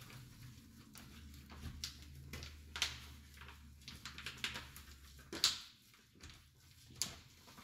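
Hands mixing and kneading a minced-pork stuffing in a bowl: soft, irregular squishing, with a few sharper clicks about three, five and a half and seven seconds in.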